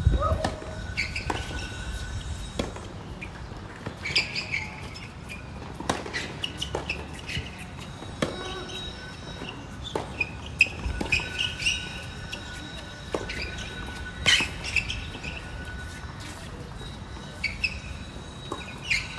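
A tennis rally on a hard court: sharp knocks of rackets striking the ball and the ball bouncing, at irregular intervals, the loudest about fourteen seconds in. Birds chirp between the shots.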